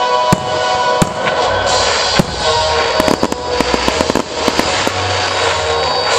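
Fireworks going off: a run of sharp bangs and crackles that grows denser about halfway through, over music playing steadily.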